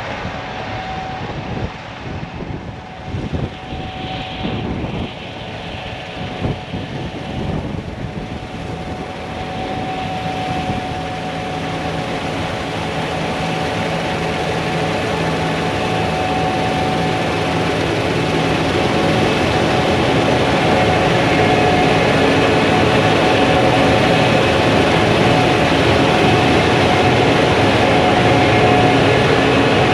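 Diesel engine of a large harvest machine running steadily and growing gradually louder as it approaches, with a steady whine above the engine note.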